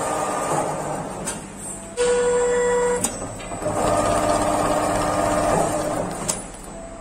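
Automatic stitch tufting sewing machine running as it tacks a round cushion: a steady mechanical whir with a held whine about two seconds in and a few sharp clicks.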